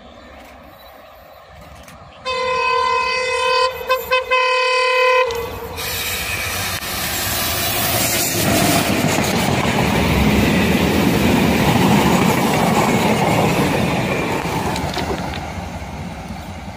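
A WDM3A ALCO diesel-electric locomotive sounds a long horn blast of about three seconds, broken by two short gaps near its middle. The train then passes close by: engine and wheel noise builds, is loudest midway, and fades as the tank wagons roll past.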